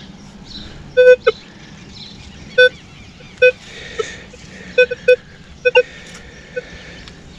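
Handheld metal detector giving short beeping target tones as its coil sweeps over sand: about a dozen brief beeps at irregular intervals, several in quick pairs, each one the sign of buried metal under the coil.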